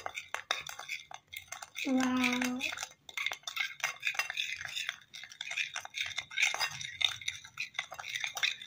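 Metal spoon scraping and clicking against a plate, stirring a thick paste of glue and magnetic iron powder in quick, irregular strokes. A short steady hum-like tone sounds about two seconds in.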